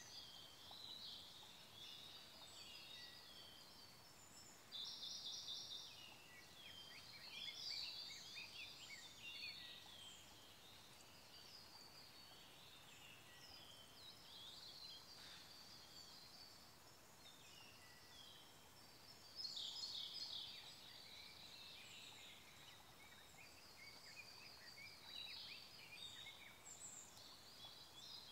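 Forest songbirds singing over a faint, even stream rush: short, fast, high trills of a Siberian blue robin about five seconds in and again near twenty seconds, with other high chirps and twittering phrases in between.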